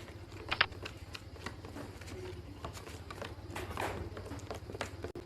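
Faint scattered clicks and a brief scrape of utensils and containers being handled while glue and water are mixed for slime, over a steady low hum.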